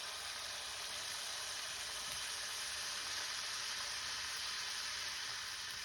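Hot oil sizzling steadily in a frying pan, a continuous even hiss.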